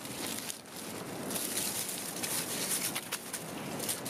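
Dry leaves crackling and a cord rustling as hands tie a guyline to a tarp corner, a few short crackles over a steady outdoor hiss.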